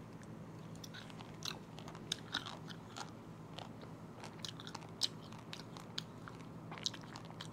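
A person chewing a mouthful of boiled silkworm pupae (beondegi): faint wet mouth clicks and small crunches starting about a second in, with a few sharper clicks among them.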